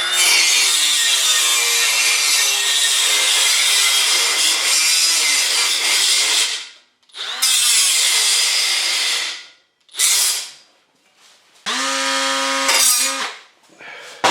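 A power tool cutting metal in several runs: one long cut of about seven seconds, then shorter ones. Under load its motor pitch wavers and sags under dense high-pitched hiss. Near the end it runs briefly with a steady, even whine.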